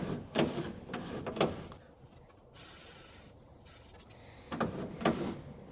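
A one-second hiss from an aerosol can of WD-40 sprayed onto the window regulator's pivot points inside the truck door, about halfway through. It comes between clicks and knocks of metal parts inside the door, near the start and again near the end.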